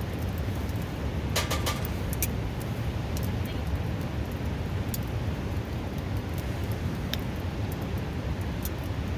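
Steady rush of a river, with a few sharp pops and crackles from a wood fire: a quick cluster of them about a second and a half in, then single pops every few seconds.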